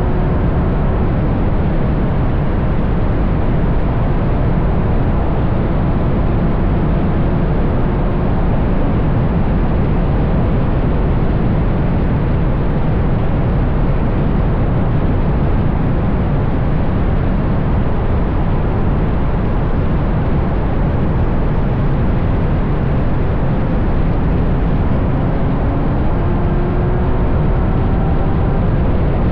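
Ferrari GTC4Lusso with a Capristo exhaust cruising at speed, heard from a camera on a pole at the back of the car: steady wind rush and road noise cover the engine. Faint engine notes rise in pitch near the start and again near the end as the car picks up speed.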